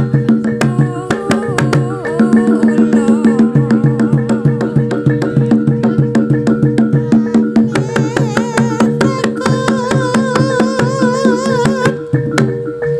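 Jaranan (kuda lumping) accompaniment music: hand drums beat a fast, steady rhythm under held low tones and a wavering melody line with vibrato.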